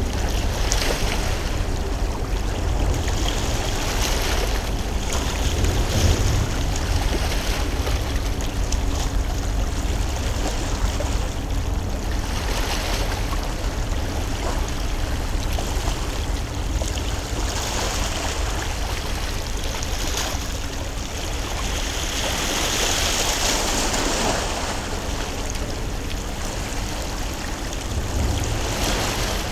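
Steady rushing noise of water and wind at the harbour's edge, with a deep rumble underneath; the hiss swells for a few seconds about three quarters of the way through.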